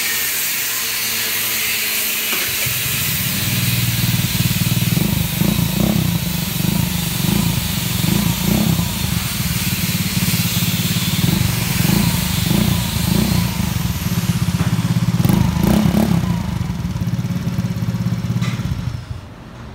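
Kuba Blueberry scooter engine running through an Akrapovic slip-on muffler that has no silencer insert fitted. It comes in a couple of seconds in, takes several short throttle blips, and cuts off near the end.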